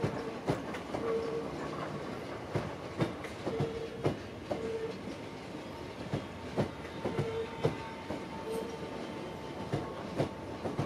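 Southeastern electric multiple-unit train running past along the platform: its wheels click and knock at irregular intervals over rail joints, over a steady rumble with a faint steady whine.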